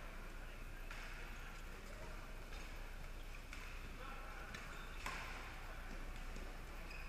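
Badminton rackets striking a shuttlecock in a doubles rally: a series of sharp hits, roughly one a second, the loudest about five seconds in, over the chatter of a busy hall.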